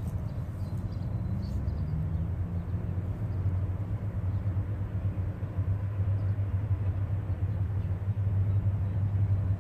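Diesel locomotives of an approaching Norfolk Southern freight train, their engines a low steady drone that grows louder toward the end.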